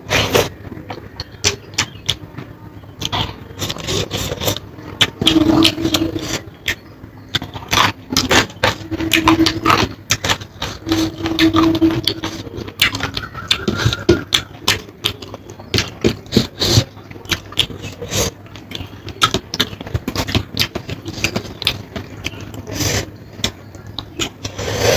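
Close-up eating sounds: chewing and wet mouth smacks in a dense, irregular run of short clicks, with some scraping of food on the plate and a few brief low hums.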